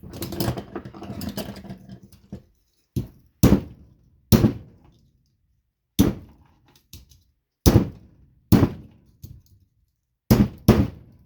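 A hammer striking the plastic plug end of a Christmas light strand, about eight sharp separate blows, some in quick pairs, smashing the plug to free the brass contacts inside. The blows follow about two seconds of clattering as the hammer and plug are handled.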